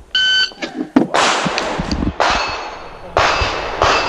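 A shot timer's electronic beep starts the string, then pistol shots from a Springfield Armory EMP semi-automatic pistol follow at about one a second, each sharp crack trailing off in echo.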